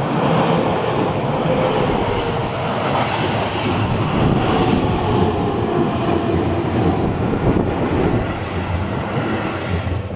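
A train passing close by on the rails, a loud continuous running noise that eases slightly near the end.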